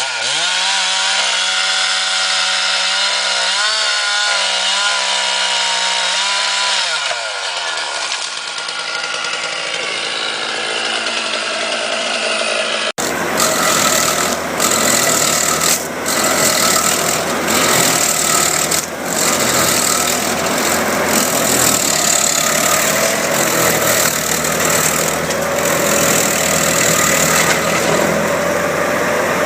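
A small high-revving engine, the kind on a chainsaw, runs at a steady high speed and then winds down about seven seconds in. After a cut comes dense mechanical noise with many sharp cracks, as of wood being cut or broken up.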